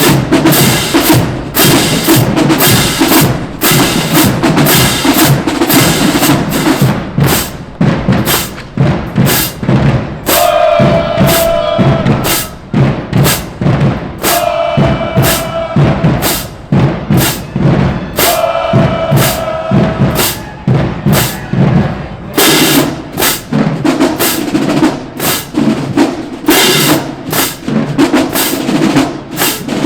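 HBCU marching band drumline playing a fast, dense marching cadence on snare and bass drums. Three long held pitched notes sound over the drums in the middle.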